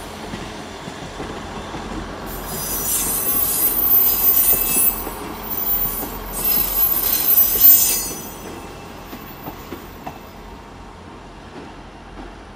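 South Western Railway Class 159 diesel multiple unit pulling slowly into the platform, its wheels squealing high-pitched from about two seconds in until about eight seconds. The squeal dips briefly in the middle, then gives way to a quieter low rumble of the moving train.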